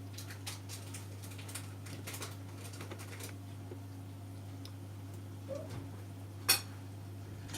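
Homemade egg incubator humming steadily, with a run of faint light ticks over the first three seconds and one sharp click about six and a half seconds in.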